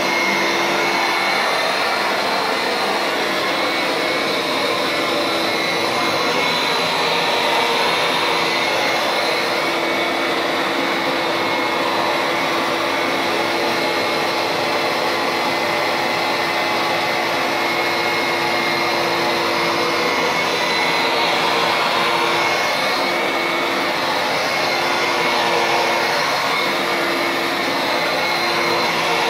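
Bissell upright carpet cleaner running as it is pushed across a carpet: a steady motor whine over a constant suction hiss as it draws up dirt and dog hair.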